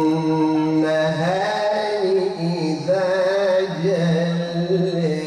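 A man reciting the Quran in melodic tajweed style, drawing out one long ornamented phrase: held steady at first, then turning up and down in pitch from about a second in.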